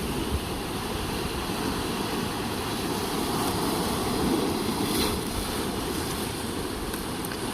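Pacific Ocean surf washing on the shore, a steady rushing with a low rumble, swelling briefly about two thirds of the way through, with wind buffeting the microphone.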